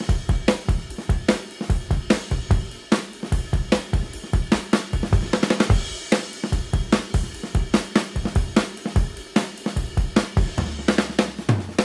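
Background music: a fast drum-kit beat of evenly spaced hits with cymbals, with a bass line coming in near the end.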